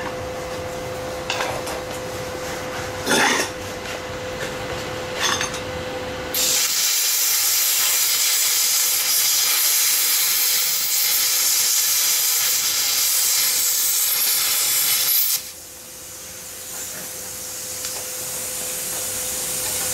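Plasma cutter cutting out a rubber-metal suspension-arm bushing: a loud, even hiss that starts about six seconds in and cuts off suddenly around fifteen seconds, after a few sharp knocks. A quieter hiss follows and slowly builds.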